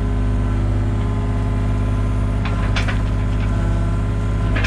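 Compact excavator's diesel engine running steadily, heard from inside the cab while the boom and bucket dig and clear dirt. A few short knocks about two and a half seconds in.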